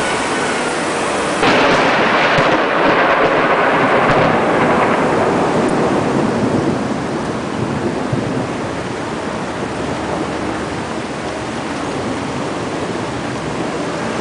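A thunderclap breaks out about a second and a half in and rumbles for several seconds before fading. Under it runs a steady hiss of a tropical thunderstorm's rain and wind.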